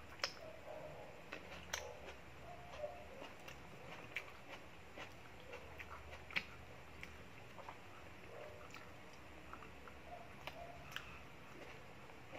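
A person chewing and eating with her bare hands: soft mouth sounds and scattered small clicks and smacks, over a faint low hum.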